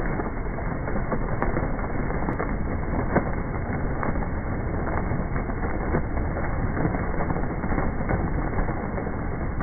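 A flock of racing pigeons taking off together from release crates, many wings flapping at once in a dense, even clatter with scattered sharper wing claps.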